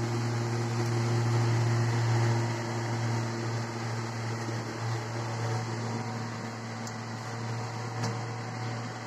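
Steady low hum of a running kitchen appliance's fan motor, with a couple of faint clicks near the end.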